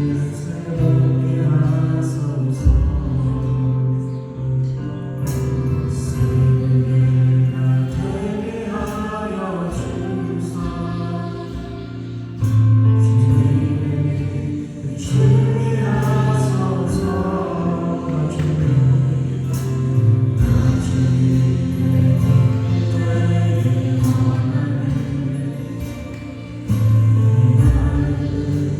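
Contemporary worship band playing a praise song with several singers: voices singing together over keyboards, acoustic guitar and drums, with a steady bass line.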